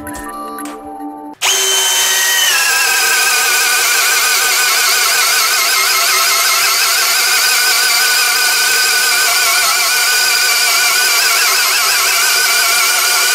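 A short music sting, then a DeWalt cordless drill starts boring into a thick timber beam with a large auger bit. The motor whines high at first, drops in pitch about a second later as the bit bites, and runs steadily under heavy load with a slightly wavering pitch.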